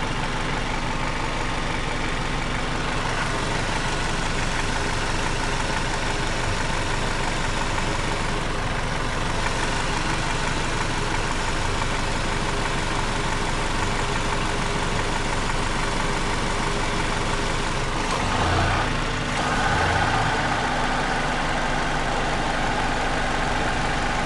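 Hyundai Sonata engine idling with the air conditioning switched on and its compressor running, a compressor the owner suspects is weak and leaking internally. The running sound is steady, then shifts about nineteen seconds in, when a higher hum joins it.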